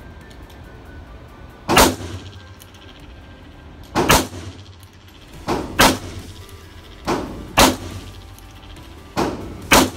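Handgun shots in an indoor shooting range: five loud, sharp reports about two seconds apart, most of them with a quieter shot about half a second before.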